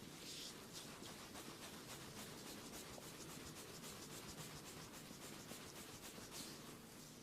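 Faint, quick scratching strokes, several a second, kept up steadily.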